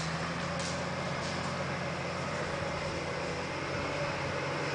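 Nissan Patrol GR 4x4 driving off-road, its engine running at fairly steady revs with a low, even hum.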